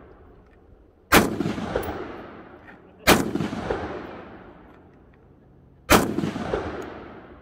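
Three gunshots fired at a slow, uneven pace, about two and three seconds apart, each sharp crack followed by a long echoing tail.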